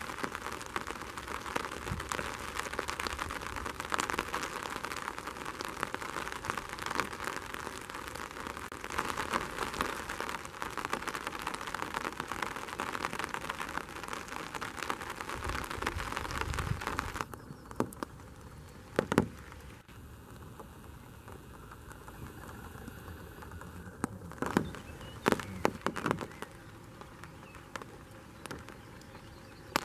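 Dense crackling patter like light rain falling on a surface, which stops abruptly about two-thirds of the way through. A quieter stretch follows, broken by a few sharp single clicks.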